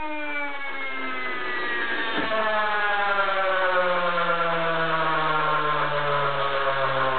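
Small homemade turbine rotor spinning down on its ball bearing after the air jet is taken away: a loud whine with many overtones, falling steadily in pitch, with a lower hum joining and sinking about halfway through. How long the rotor keeps running is the builder's test of a well-made bearing.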